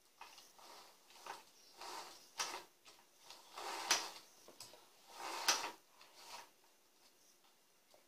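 Chain and guide bar of an Intertool DT 2204 electric chainsaw clinking and sliding by hand as the chain is adjusted on the bar. It comes as a series of short clatters, the loudest two about four and five and a half seconds in.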